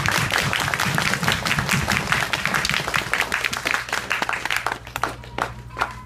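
Audience applauding, a dense patter of many hands that thins out to a few scattered last claps near the end.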